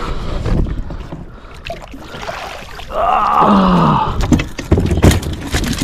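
A fish being lifted aboard a plastic fishing kayak: a long, loud strained groan about three seconds in, then a run of sharp knocks and thumps against the hull.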